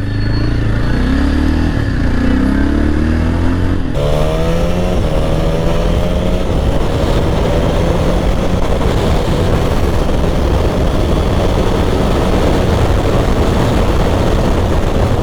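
Motorcycle engine under way, its pitch rising twice as the bike accelerates, then holding steady at cruising speed, with a steady rush of wind noise over the microphone.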